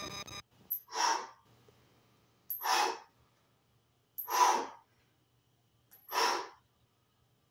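A man's forceful breaths out through the mouth, four short puffs evenly spaced about every second and a half to two seconds, each starting with a faint click: exhaling on the effort of each rep of a standing resistance-band chest press.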